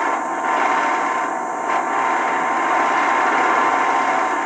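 A steady, rough hiss of noise from a television's speaker, with no speech.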